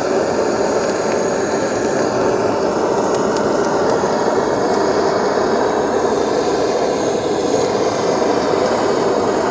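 Handheld gas blowtorch burning with a steady rushing flame, held against raw meat to singe it.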